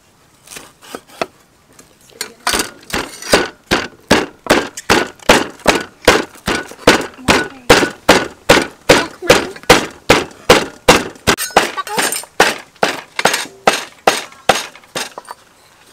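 Steel meat cleaver chopping raw meat on a thick round wooden chopping block: a steady run of thuds about three a second, softer for the first two seconds, then louder.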